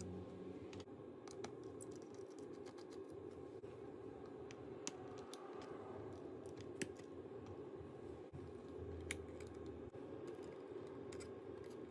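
Faint, scattered clicks and taps, a few seconds apart, as plastic opening tools and tweezers work at the antenna connectors and screws inside an open MacBook Pro. A steady low hum runs underneath.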